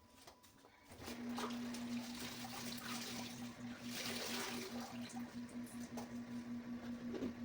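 Water running and trickling, as from a tap into a sink during washing, over a steady low hum that starts about a second in.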